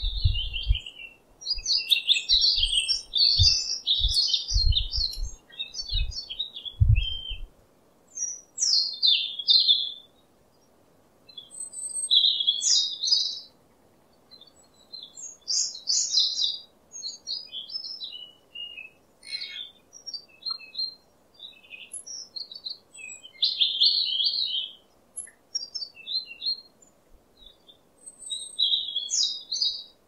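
European robin singing: short, high phrases of varied quick notes, separated by pauses of a second or two. A few low thuds sound in the first seven seconds or so.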